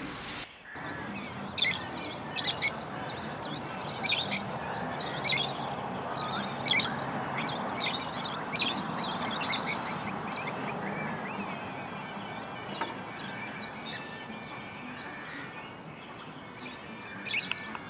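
Small birds chirping: a dozen or so sharp, high call notes at irregular intervals, bunched in the first half and again near the end, with fainter twittering over a steady background hiss.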